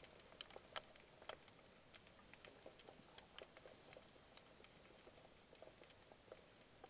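Faint underwater crackle: scattered sharp clicks, several a second, over a quiet hiss, picked up by a submerged camera over a rocky reef.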